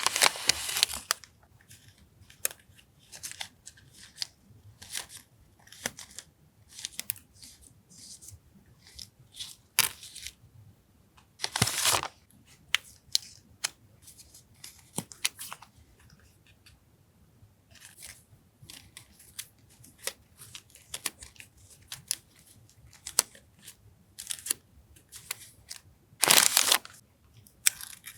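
Paper and plastic stationery packaging being handled on a desk. Scattered small taps and clicks run throughout, with longer crinkling rustles at the start, about twelve seconds in, and near the end.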